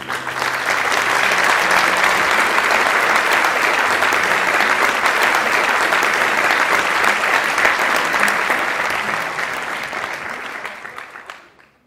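Audience applauding: dense clapping from a large seated crowd that swells within the first second, holds steady, then fades away over the last couple of seconds.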